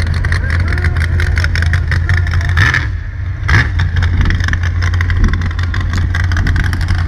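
Mega truck engine running hard under throttle, a deep, loud exhaust note that dips briefly and then revs up again about three and a half seconds in.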